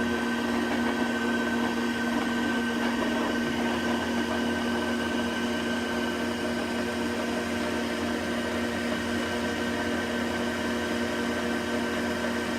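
Jet drill press running steadily with a continuous motor hum, its chuck freshly reseated on the arbor to cure a wobble.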